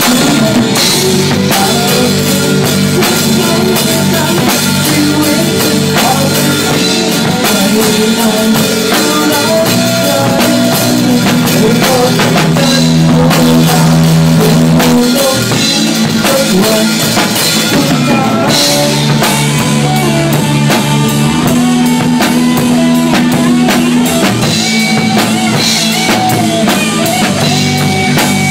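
A rock band playing live: a drum kit played close by, with electric guitars.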